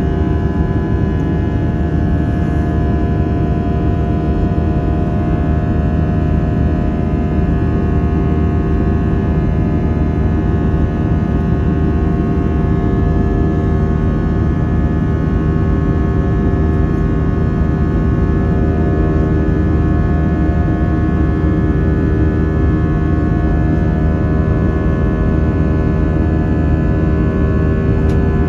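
Airbus A320 jet engines and airflow heard inside the cabin during the climb after takeoff: a steady low rumble with several steady tones over it.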